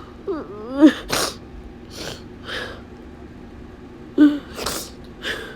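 A man crying: short, rising whimpers, each followed by a loud, sharp sobbing breath, with softer sniffling breaths in between.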